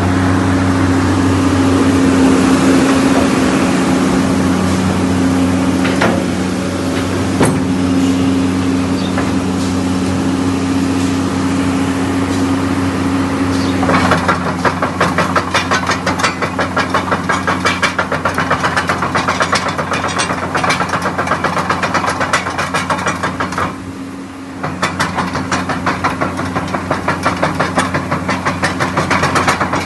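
Komatsu PC200 excavator's diesel engine running steadily under test. About halfway through, a fast, regular clatter of about three knocks a second sets in, briefly drops out, then resumes.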